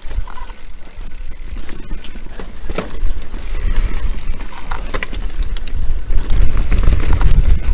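Mountain bike riding fast down a dirt singletrack: a continuous rumble of knobby tyres on the trail, broken a few times by sharp clacks and rattles from the bike over bumps. A low wind buffeting on the bike-mounted microphone grows louder in the second half as speed picks up.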